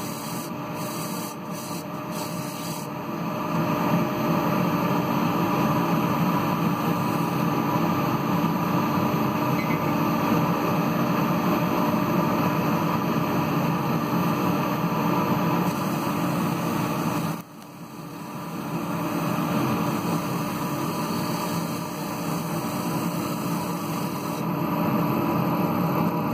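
Wood lathe running steadily with an ash bowl spinning on it: a constant hum under a steady hiss, with sandpaper rubbing on the spinning bowl at the start. About two-thirds of the way through the sound drops sharply and builds back up over a couple of seconds.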